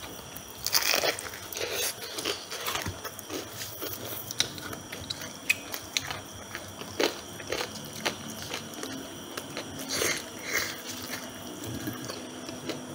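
Crispy deep-fried chicken being bitten and chewed by two people: irregular crunches of the thick fried skin.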